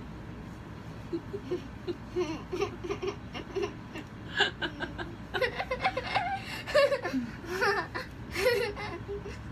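A young girl and a woman laughing together. A run of short, rhythmic laughs starts about a second in, then louder, higher-pitched giggling takes over from about four seconds in.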